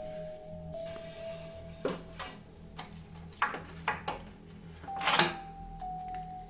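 Several short clicks and knocks of objects being handled, with a louder clatter about five seconds in, over slow background music of long held notes.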